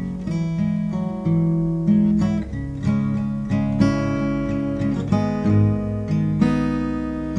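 Background music: an acoustic guitar playing chords, picked and strummed, with no singing.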